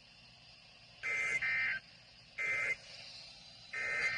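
Emergency Alert System SAME digital data bursts: four short buzzy tone bursts, the first two back to back, the others about a second apart.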